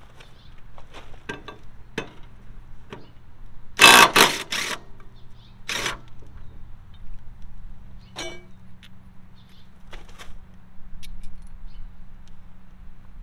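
DeWalt 20-volt cordless impact driver hammering in a few short trigger bursts about four seconds in, then once more just under two seconds later, breaking a mower blade bolt loose. Light metal clicks and clinks of the bolt and tools being handled come before and after.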